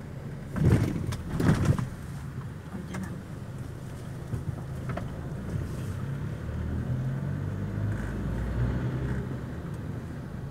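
Car engine and road noise heard from inside the cabin while driving slowly, a steady low hum. Two short, loud noises come about a second in.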